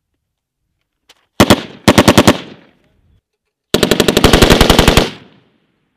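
Machine gun firing fully automatic bursts: a very short burst about a second and a half in, a quick burst of about five rounds right after, then a longer burst of just over a second near the middle, each ringing out briefly after it stops.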